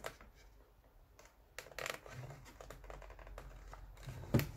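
Hand-stitching a leather scabbard held in a wooden stitching horse: a few soft rustles and clicks as the lace is worked through the punched holes, with one sharper click near the end.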